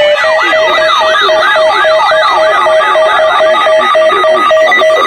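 Electronic siren in a fast yelp, about three rises and falls a second, over a steady, fast-pulsing alert beep. The yelp stops about three and a half seconds in while the pulsing beep carries on.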